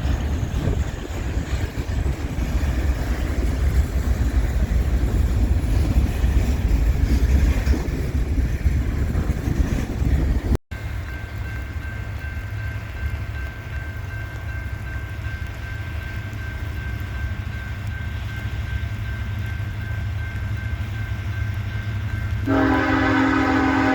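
Diesel freight train rumbling heavily, then after a cut a quieter steady train sound. Near the end a locomotive's multi-chime air horn starts up, a loud held chord.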